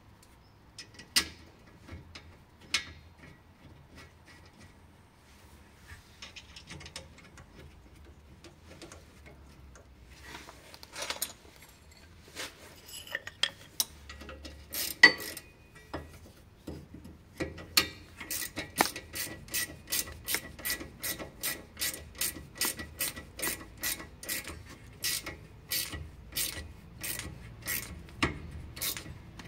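Hand ratchet clicking in a steady run of about two to three clicks a second, after a stretch of scattered clinks and knocks from tools being handled.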